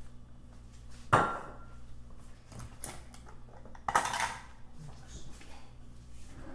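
Kitchen clatter of dishes and utensils being handled and set down on a countertop. Two louder knocks stand out, about a second in and about four seconds in, the first with a brief ring, among lighter clicks over a low steady hum.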